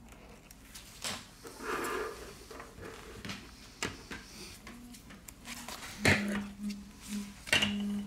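Sharp clicks and knocks of a glue tube, tools and a phone back cover being handled and set down on a work table, four in all with a brief rustle early on. Near the end a low hum comes and goes in short pulses.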